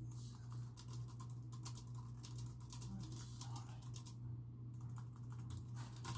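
Fast typing on a computer keyboard: a dense, irregular run of key clicks with a brief pause about four seconds in, over a steady low hum.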